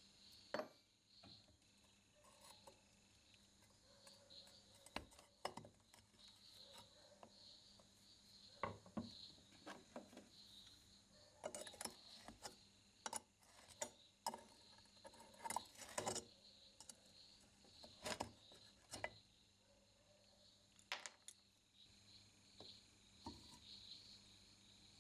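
Pliers clicking and clinking against the rusted cast-iron body and lid of an antique charcoal iron: scattered sharp metal taps, thickest in the middle stretch, with a faint steady high chirring behind them.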